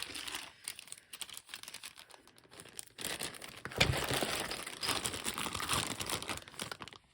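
Plastic packaging crinkling as board game pieces are handled, with a few small clicks at first; about three seconds in the crinkling becomes louder and continuous.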